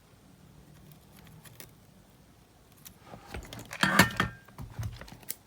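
Small metal tools or parts clinking and rattling as they are handled during desoldering work on a cassette player's circuit board, a burst of sharp clicks about three seconds in, loudest near four seconds, with a brief metallic ring.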